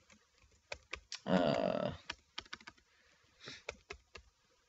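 Typing on a computer keyboard: scattered single keystrokes at an uneven pace as a word is entered into a search box, with a short murmured voice sound a little over a second in.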